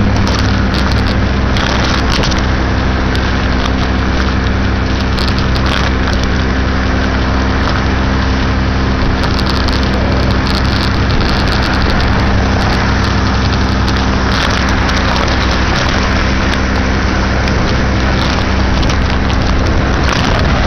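A 2006 Baja SC50 moped's small engine runs at a steady drone while riding along, with a constant rush of wind and road noise over it.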